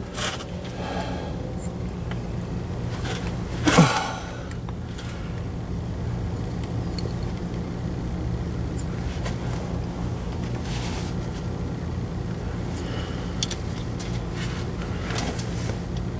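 A steady low machine hum, with a few clicks and scrapes of a metal transmission part being handled; the loudest clack comes about four seconds in.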